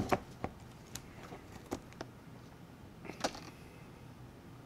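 A sharp tap as a small plastic dip cup is set down on the table, then a few soft clicks and mouth sounds of chewing.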